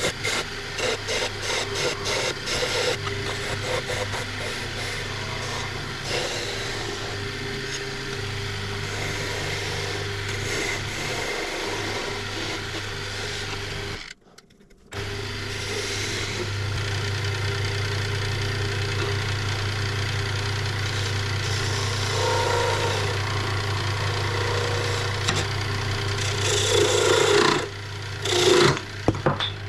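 Wood lathe running with a steady motor hum while a skew chisel cuts beads into a thin wooden spindle, a rough scraping hiss from the cut. The sound drops out for about a second midway, and the cutting grows louder and harsher in short bursts near the end.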